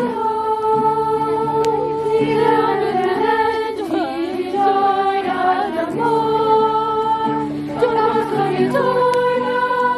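Music: a sung melody of long held notes over a steady accompaniment.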